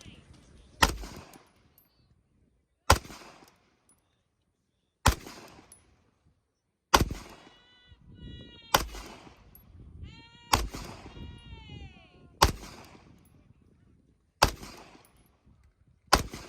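Single gunshots fired at a steady, deliberate pace, about one every two seconds, nine in all, each followed by a short echo.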